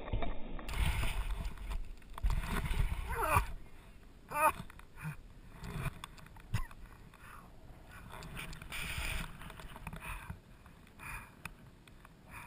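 Wind rumbling on the camera microphone, with two short cries sliding down in pitch about three and four and a half seconds in, then scattered rustling.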